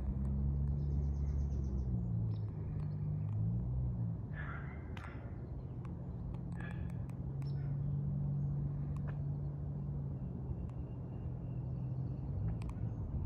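A steady low hum that shifts slightly in pitch a few times, with short bird calls about four and seven seconds in.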